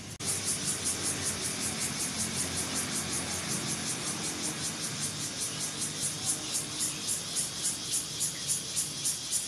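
An animal calling from the trees with a steady, regular high-pitched pulse, about three pulses a second.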